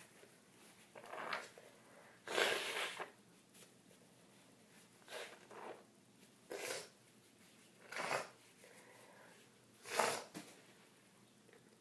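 A woman with a bad cold sneezing and sniffling: about six short, breathy bursts, the loudest about two and a half seconds in and another strong one near the end.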